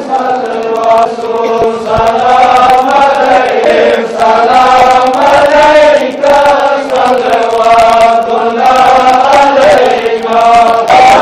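Congregation of men chanting a devotional prayer together, a slow melodic chant of long held notes with only brief breaks.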